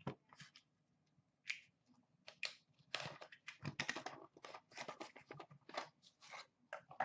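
Small white cardboard box being handled and opened by hand: a quiet run of short scrapes, rustles and clicks as the lid and flaps are worked open, starting about two and a half seconds in.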